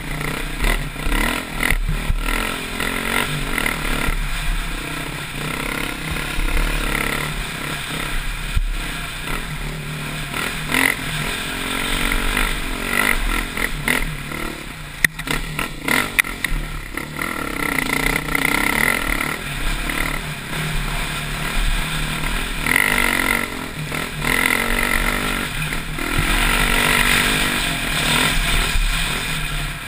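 Dirt bike engine revving up and down over and over while riding a rough, rocky trail, with clattering knocks from the bike over the bumps.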